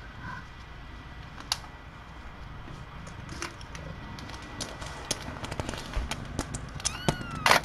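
Quiet room with many small, sharp clicks and ticks, coming more often toward the end. About seven seconds in there is one short, high squeak that falls in pitch, followed by a louder click.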